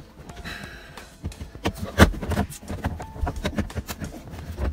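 Irregular clicks and knocks of hand tools and plastic dashboard trim being worked on inside a car, with one loud knock about two seconds in.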